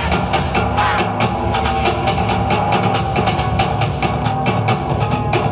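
Yosakoi dance music played loud over the stage loudspeakers: a recorded track with a fast, steady drum beat under full instrumental backing.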